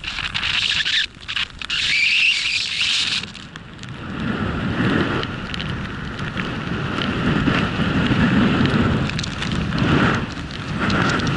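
Rushing wind noise on the microphone and the hiss of a snowboard cutting through deep powder snow. Brighter and hissier for the first three seconds, then a lower, rumbling rush.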